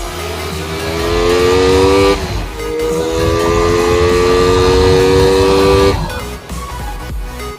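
Motorcycle engine accelerating hard, its pitch climbing steadily, dropping briefly about two seconds in at a gear change, then climbing again before falling away about six seconds in. Background music plays underneath.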